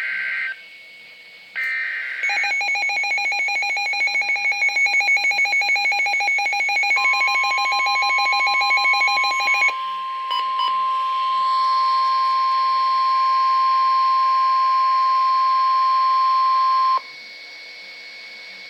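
Emergency Alert System signalling on NOAA Weather Radio: two short warbling SAME data bursts, then a rapid pulsing electronic alert beep, overlapped by the steady 1050 Hz weather radio warning tone, which holds for about ten seconds and cuts off sharply.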